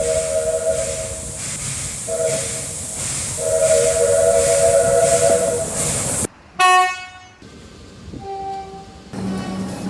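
Steam locomotive chime whistle, a three-note chord over a steady hiss of steam, sounding a long blast, a short one and another long one. After an abrupt cut, two short toots from another train, the first loud and bright, the second fainter, and a low steady horn tone begins near the end.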